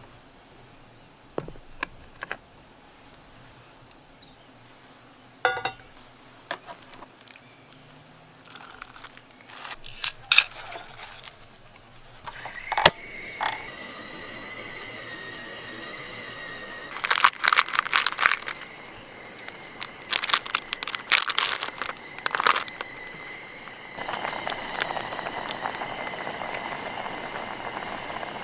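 Camp-cooking handling sounds: scattered clicks and crinkling early on. About twelve seconds in, a steady high tone starts. It is joined by several loud bursts of crackling noise and, near the end, a steady hiss like food starting to sizzle or boil.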